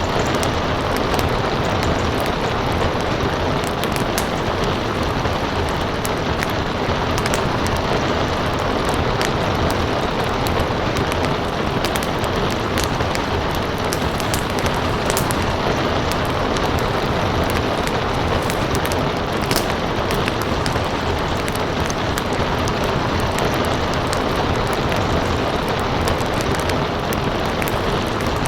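Steady rain mixed with a crackling wood fire: a dense, even hiss with frequent small sharp pops and crackles scattered throughout.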